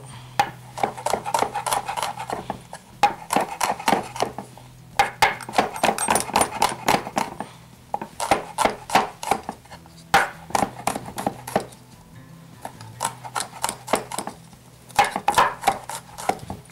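Kitchen knife chopping garlic on a wooden cutting board: quick runs of sharp strikes, each run lasting a second or two, with short pauses between.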